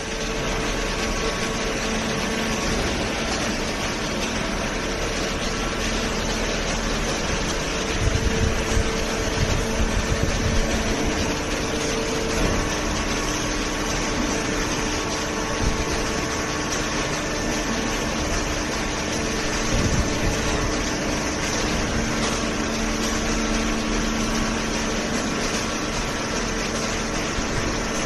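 Horizontal hydraulic cardboard baler and its feed conveyor running: a steady machine hum with a couple of held tones, and scattered low knocks and thumps around a third of the way in.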